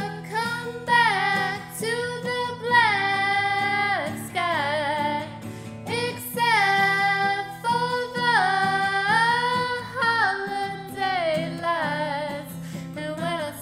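Song: a woman singing long held notes with vibrato, sliding between pitches, over steady instrumental backing.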